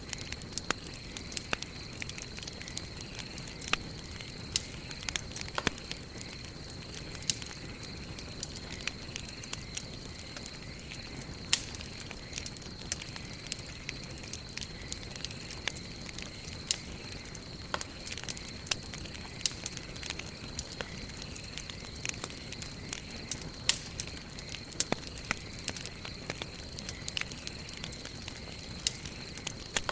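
Campfire of burning wood crackling, with frequent sharp, irregular pops over a low steady rush. A thin, steady high tone runs beneath it.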